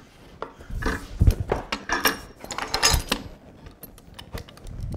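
Sharp knocks and light rattling clatter of a plywood piece and tools being handled on a woodworking bench with a vise, the loudest knock a little over a second in and lighter clicks after.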